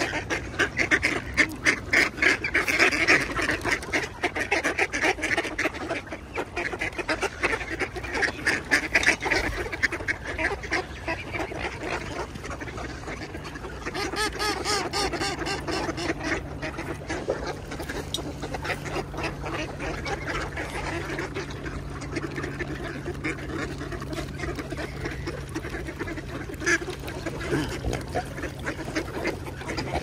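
A large flock of ducks quacking and chattering together, many calls overlapping, loudest in the first ten seconds or so and then carrying on a little more quietly.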